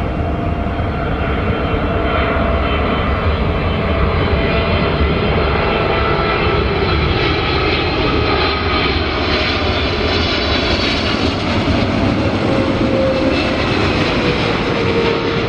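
Boeing 777-300ER's twin GE90 turbofan engines on landing approach with gear down: a steady, loud jet roar with faint whining tones, one of them slowly falling in pitch over the last few seconds as the aircraft passes.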